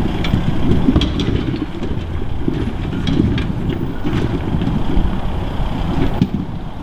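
Mitsubishi Pajero four-wheel drive crawling up a rocky track at low speed, its engine running under load, with scattered knocks and crunches of rocks under the tyres.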